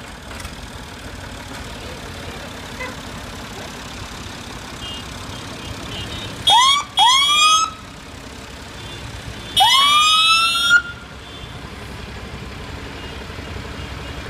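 Emergency-vehicle siren sounding in short rising whoops: a brief one about six and a half seconds in, a second straight after, and a longer one about ten seconds in. Each sweeps up in pitch and then levels off.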